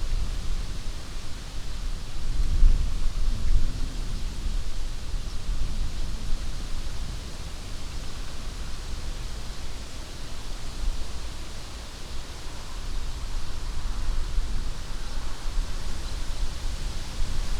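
Wind blowing through the leaves of an old alder tree: a steady rushing hiss that swells and eases in gusts, over a low rumble of wind buffeting the microphone.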